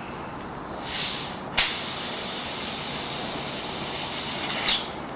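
Pressurised air hissing out of a truck tire's nail puncture as the nail is pulled: a short hiss about a second in, then a sudden, loud, steady hiss of escaping air that cuts off near the end as the hole is closed.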